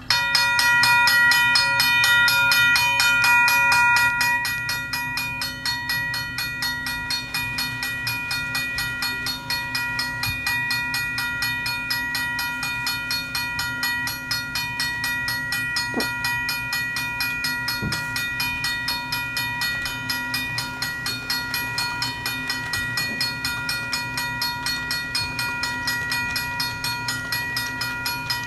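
Railroad crossing bell ringing in fast, even strokes, starting suddenly and loudest for the first four seconds or so.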